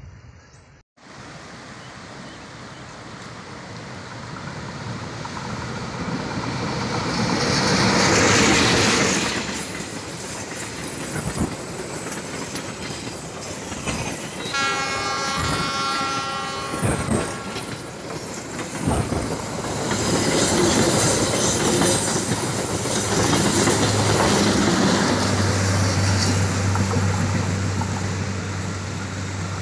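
Passenger train approaching and passing close by: a rising rumble, then wheels clacking over the rail joints as the coaches roll past. A horn blast of about three seconds sounds midway. A steady low hum comes in near the end as the train rolls away.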